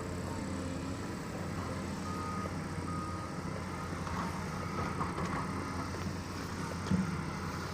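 Heavy earthmoving machine's diesel engine running steadily, with a short repeated warning beep in the first half and a single thump about seven seconds in.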